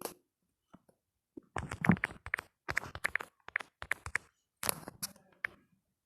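Keyboard typing: a run of separate, uneven key taps that starts about a second and a half in, pauses briefly, resumes, then stops near the end.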